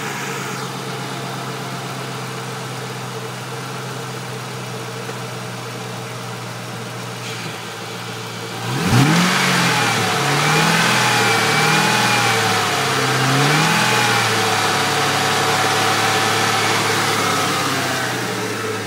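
Car engine idling steadily, then from about nine seconds in revved up and down several times before settling into a higher, steady run; the owner takes the engine's trouble for probably a spun bearing.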